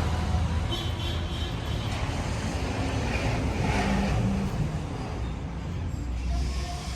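A car's engine running, a steady low rumble with road and workshop noise.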